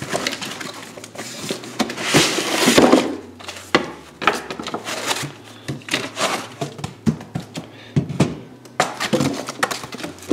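Cardboard box and packing handled while a DC power supply is unpacked: cardboard and packing rustling and scraping, loudest about two to three seconds in, with scattered knocks and thumps throughout.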